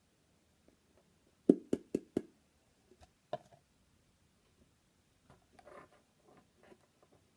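A plastic squeeze bottle of glue knocked four times in quick succession, then once more, as thick glue is worked out of the nearly empty bottle; faint clicking and rustling of handling follow near the end.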